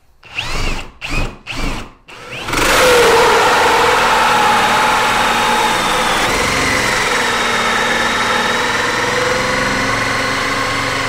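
Bosch GSB 18V-150 C brushless cordless drill cutting a hole in stacked chipboard with a wood hole saw. A few short bursts come first. About two seconds in, the drill runs continuously, a steady motor whine over the rasp of the saw teeth, and it stops abruptly at the end. It cuts through easily even on a nearly flat battery.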